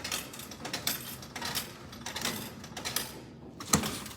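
Coins clinking and clattering at a drinks vending machine, with a sharp knock about three and a half seconds in.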